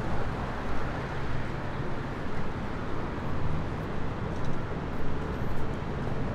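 Steady road-traffic noise of a busy city street: a constant rush with a low engine hum underneath.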